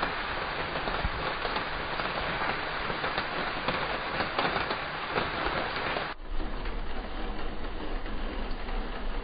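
Steady rain falling, with scattered drop taps. About six seconds in it cuts suddenly to a quieter, duller background with a low rumble.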